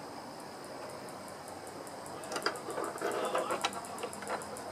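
Light metallic clicks and rattles from a loosened bolt and the blade-guard link parts of a sliding compound miter saw being unscrewed and taken off by hand. They come in the second half, after a couple of quiet seconds.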